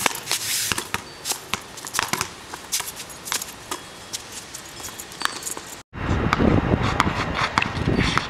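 A basketball dribbled on a concrete sidewalk: repeated sharp bounces mixed with footsteps. About six seconds in, the sound cuts out for a moment and comes back over a low rumble.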